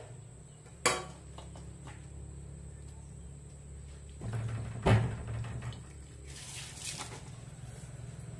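Metal spoon clinking and scraping in a metal basin of grated coconut while the coconut is squeezed by hand over a strainer: two sharp clinks, one about a second in and a louder one about five seconds in.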